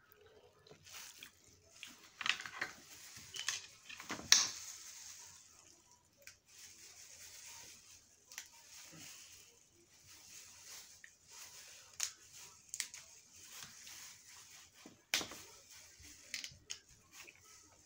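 Clear plastic gloves crinkling and rustling as gloved hands handle and break apart snow crab legs, with several sharp cracks, the loudest about four seconds in.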